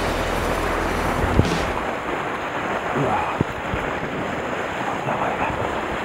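Sea surf washing and breaking over a rocky shore, with wind buffeting the microphone.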